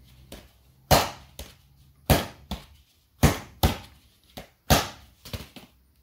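Rubber mallet whacking the side of a 3D-printed puzzle box core, to break loose gears that printed fused together. There are about four hard knocks roughly a second apart, each followed by a lighter one.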